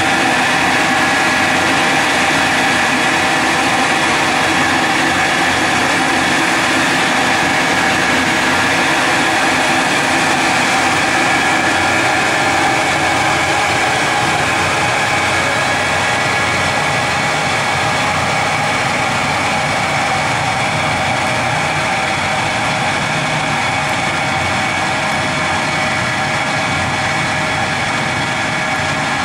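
A machine running steadily, a dense even mechanical noise with several steady tones and no change in speed.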